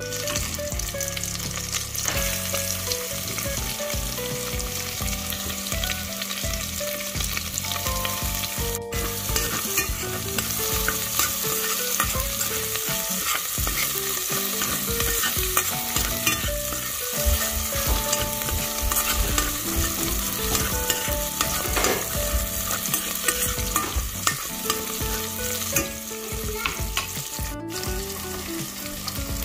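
Food sizzling and frying in a hot pan while it is stirred, with frequent short scrapes and clicks of the utensil against the pan.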